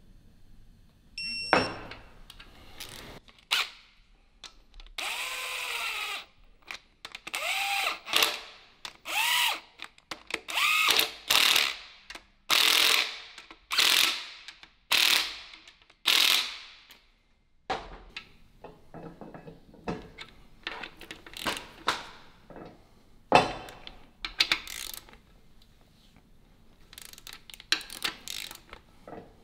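Hand ratchet wrench worked back and forth in a run of about nine strokes, its pawl clicking rapidly on each return swing so that each stroke rises and falls in pitch. A sharp click comes near the start, and lighter clicks and knocks follow the run.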